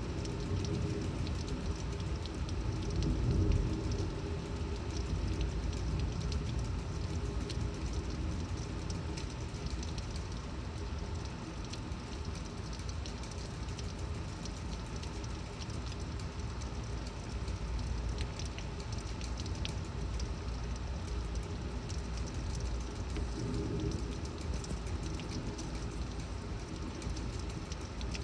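Torrential rain pouring steadily, with sharp drop ticks and a deep rumble of storm wind underneath, swelling louder about three seconds in.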